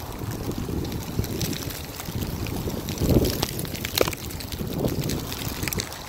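Wind buffeting the microphone in a steady low rumble, with a stronger gust about three seconds in that sets dry leaves skittering and scraping over asphalt in a few short crackles.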